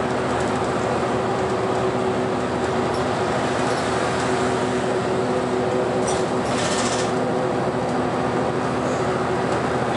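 A city bus cruising at speed, heard from inside the cabin: a steady engine and drivetrain drone with a constant low hum, under tyre and road noise. A brief higher hiss or rattle comes about six seconds in.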